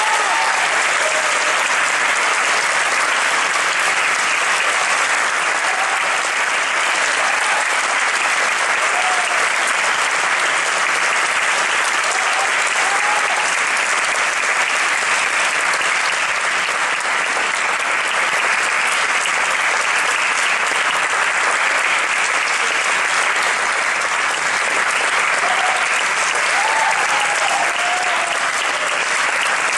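Audience applauding steadily after the music has ended.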